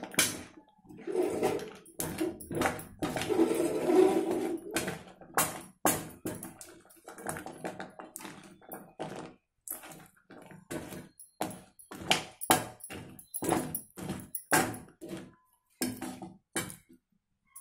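Metal slotted spoon scraping and knocking against a metal kadai as fried gavvalu are stirred and tossed through jaggery syrup. The stirring is busiest in the first few seconds, then goes on as irregular scrapes and knocks.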